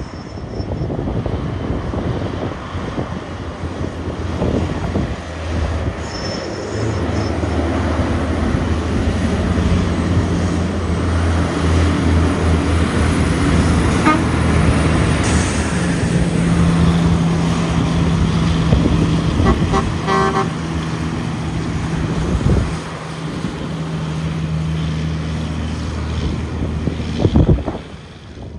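Heavy diesel truck engine labouring under load up a steep grade, a steady low drone that grows louder, holds, and drops off about three-quarters of the way in.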